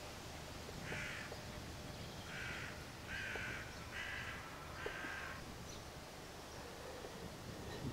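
A crow cawing five times, harsh calls about a second apart.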